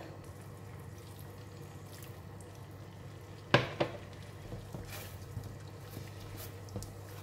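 Water poured into a pan of thick Panang curry sauce and stirred in with a silicone spatula, the sauce wet and simmering to thin the gravy. Two sharp knocks about halfway through, over a steady low hum.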